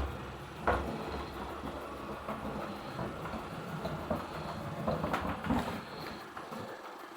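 CHUWI ILIFE V7S robot vacuum cleaner running, with irregular knocks and clatter. The sharpest knock comes just under a second in.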